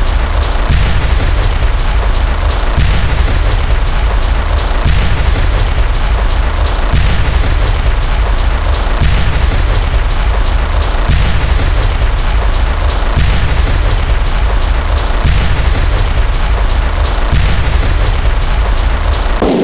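A loud, dense wall of rapidly overlapping sound effects: rapid clicks over a constant deep boom, with a pattern that repeats about every two seconds. It is the piled-up sound of a counter's per-step effect played far too fast to hear each one.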